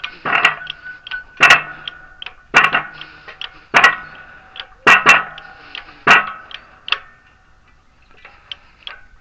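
Hammer striking metal in six hard blows about a second apart, each with a short metallic ring, then a lighter blow and a few faint taps: a part being driven into place during front wheel bearing work.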